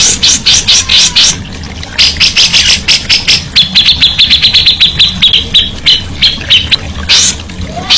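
A songbird singing loudly in sharp, rapidly repeated notes, with a long, fast trill of even-pitched notes through the middle.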